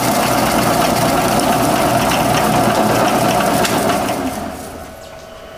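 Milling machine counterboring a bolt hole in a steel lathe-chuck backing plate: loud metal-cutting noise over a steady whine from the spindle. The cutting noise falls away about four seconds in as the cut ends, leaving the spindle running more quietly.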